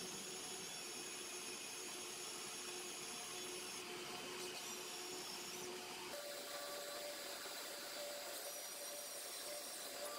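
Cordless drill driving a large bit into a plum-wood log, a steady motor whine with the cutting noise of the bit chewing out shavings. The whine steps up in pitch about six seconds in.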